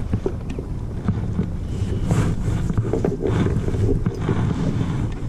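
Wind buffeting the camera's microphone in a steady low rumble, with a couple of brief swishes about two and three seconds in.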